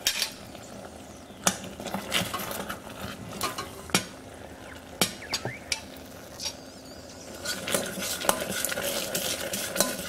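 Utensils knocking and clinking against a stainless steel pot, then a spatula stirring and scraping thick, hot honey syrup in it from about seven and a half seconds in, with a faint sizzle of the sauce.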